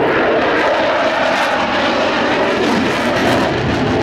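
Loud, steady jet noise from an F-16 fighter's single engine as it passes close in a tight display turn, afterburner lit.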